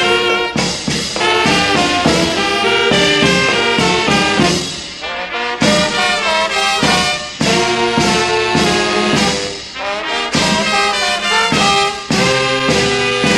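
Brass band playing, with the cornet featured, in phrases of held and moving notes broken by short pauses about five and ten seconds in.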